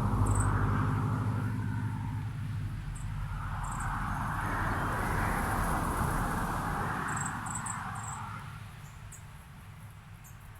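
Road traffic passing by: an engine rumble at first, then a car's tyre and engine rush that swells and fades away near the end. Short, high bird chirps come now and then over it.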